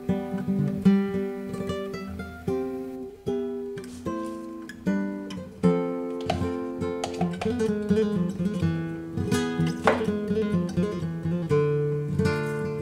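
Background music: acoustic guitar, picked and strummed.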